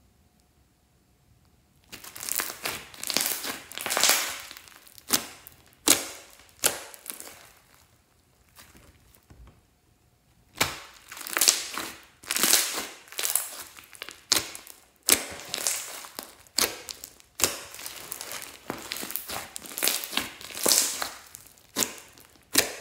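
Thick, lumpy slime being squeezed, stretched and kneaded by hand, giving repeated squishing and sharp clicking sounds. It starts about two seconds in, eases off for a few seconds in the middle, then comes back in quick runs.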